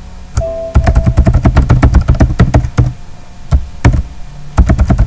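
Fast typing on a computer keyboard: a quick run of keystrokes entering a password, pausing briefly and resuming near the end. A short steady tone sounds about half a second in.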